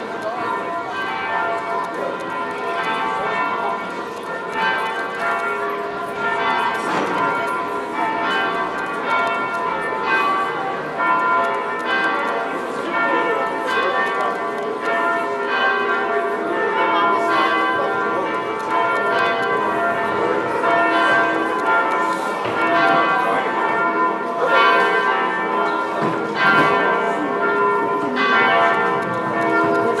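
Church bells ringing in a continuous peal, strikes following one another closely and each ringing on. The peal grows a little louder in the second half.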